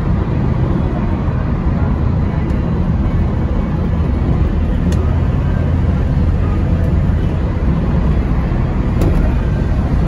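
1973 Plymouth 'Cuda's 340 V8 and its tyres at a steady cruise, heard from inside the cabin: a steady, low engine and road noise.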